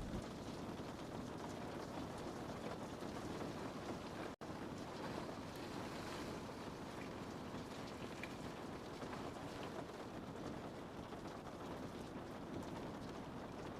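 Rain falling steadily on a window pane, a dense even patter of drops with fine ticks of individual drops striking the glass. About four seconds in the sound cuts out for a split second, then carries on.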